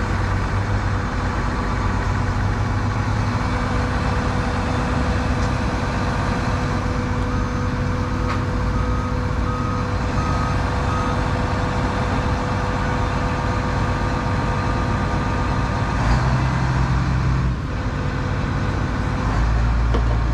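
Tractor engine running steadily, with a short run of beeps about nine seconds in. The engine note shifts briefly about sixteen seconds in and again near the end.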